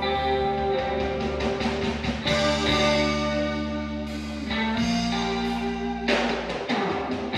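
Instrumental band music led by guitar over bass and drums, with no singing; the chord changes twice in the second half.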